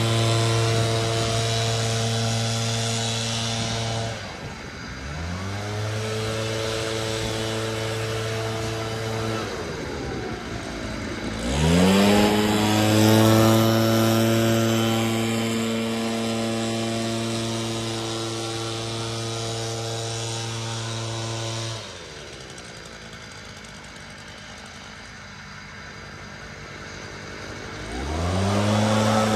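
Gas leaf blower engines running at high throttle. The throttle drops and sweeps back up to speed about five seconds in and again about eleven seconds in, and falls to a low run about twenty-two seconds in before revving up again near the end. The sound is loudest, with more rush of air, around twelve to sixteen seconds in, as a second blower passes close.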